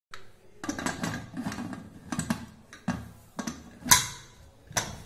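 Aluminium pressure cooker lid being set on and turned shut: a string of metal scrapes, clicks and clanks, the loudest about four seconds in.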